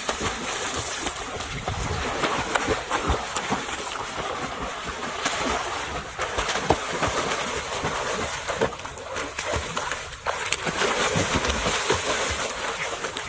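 Continuous splashing and sloshing of water, full of small irregular splashes.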